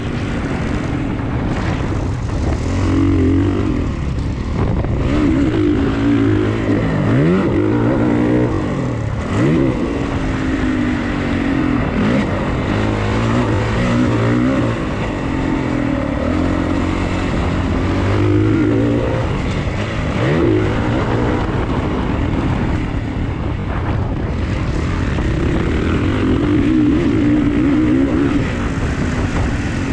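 Dirt bike engine heard on board while being ridden around a motocross track. The revs rise and fall again and again with throttle and gear changes, with several quick climbs in pitch.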